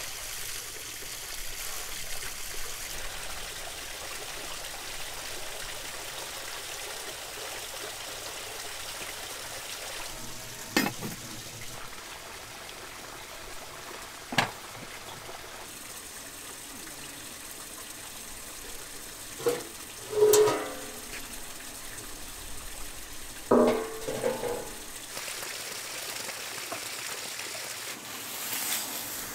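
Steady watery rushing noise, broken by a few sharp knocks and clinks, the loudest about two-thirds of the way through.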